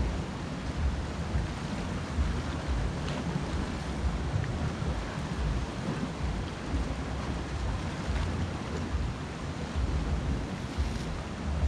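Wind buffeting the microphone in uneven low gusts over a steady wash of surf breaking on a rocky shoreline.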